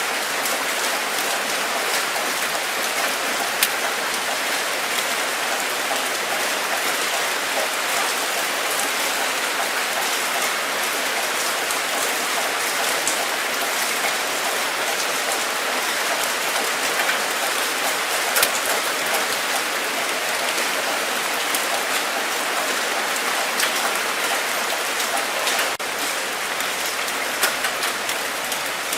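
Steady rain falling, a continuous hiss with many individual drops pattering sharply on a surface.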